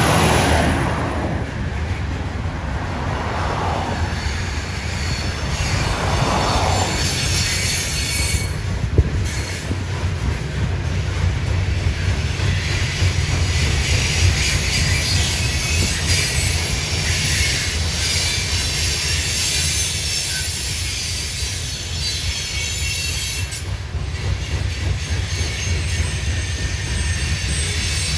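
Loaded coal hopper train rolling past: a steady low rumble of wheels on rail, with a high-pitched wheel squeal coming in about eight seconds in and running on. A semi truck passes loudly at the start.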